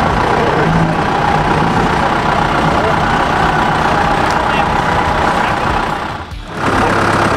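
Off-road 4x4 engine running, mixed with voices. About six seconds in the sound drops out briefly, then a steadier engine hum follows.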